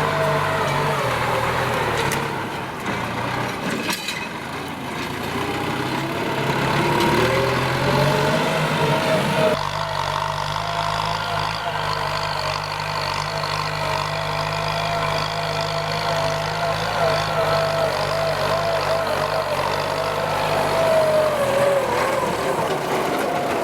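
Kubota M9540 tractor's diesel engine running under load. Its pitch sags a few seconds in and climbs back, then holds steady, with an abrupt change in the sound near the middle.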